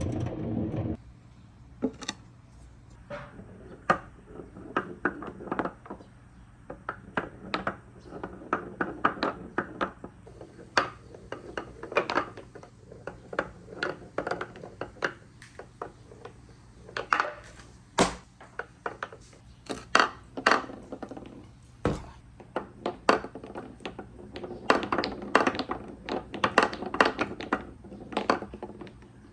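Marbles rolling and clacking through a wooden marble run: a steady run of clicks and knocks with stretches of rolling rumble, and two sharper knocks in the second half.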